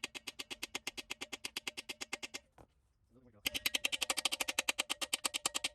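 Rapid, evenly spaced metal-on-metal hammering, about nine blows a second, stopping for about a second near the middle and then starting again. A new bushing is being driven into a BMW E36 rear subframe.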